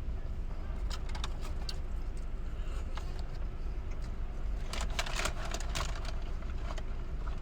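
A steady low rumble like a car engine idling, with scattered rustling and clicking, briefly about a second in and again around five seconds in.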